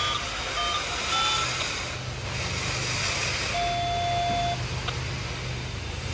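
A run of short electronic beeps at several different pitches in the first second and a half, then one longer beep about three and a half seconds in, over a steady low hum and a brief hiss about two seconds in.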